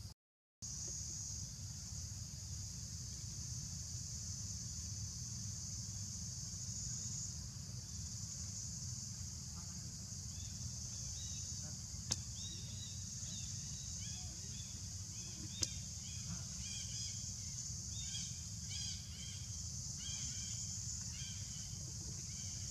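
Outdoor forest ambience: a steady high-pitched drone over a low rumble. From about ten seconds in come runs of short, repeated chirps, along with two faint clicks.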